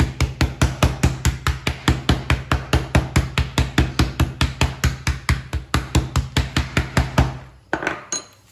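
Meat mallet pounding a chicken breast flat through plastic sheets on a plastic cutting board: rapid, even blows about five a second that stop about seven seconds in, followed by a single thump and a brief rustle of plastic.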